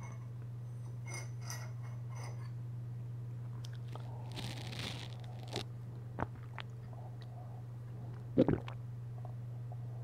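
Steady low electrical hum with scattered faint clicks and short crunching noises, and a brief rustle about four seconds in.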